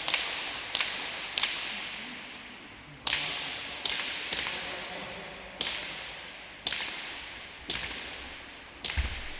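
Hand-pelota ball cracking off players' hands, the front wall and the floor of a frontón during a rally: about ten sharp cracks at uneven spacing. Each crack rings out in a long echo in the empty court.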